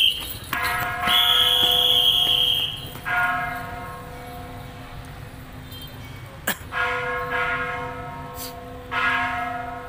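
A bell struck about five times at uneven intervals, each strike ringing with several steady overtones and dying away over a second or two. A single sharp click about six and a half seconds in.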